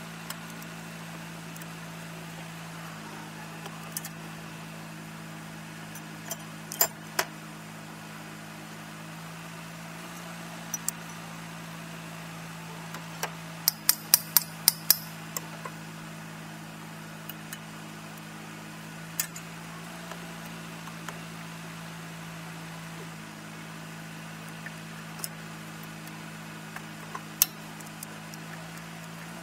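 Hand tools clinking and clicking on metal fittings in a car's engine bay, in sharp scattered clicks with a quick run of about seven near the middle. A steady low hum runs underneath.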